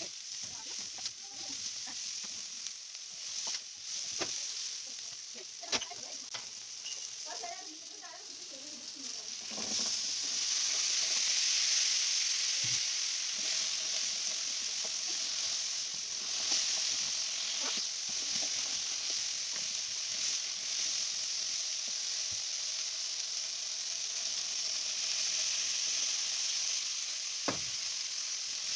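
Diced onions and garlic sizzling in oil in a wide aluminium frying pan, with a wooden spoon stirring and now and then knocking against the metal. About ten seconds in the sizzle gets louder and stays so as diced potatoes fry and are stirred to coat them in oil.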